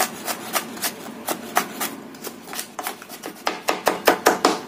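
Kitchen knife chopping garlic on a wooden cutting board: a run of sharp knocks, about three or four a second, quickening in the last second and a half.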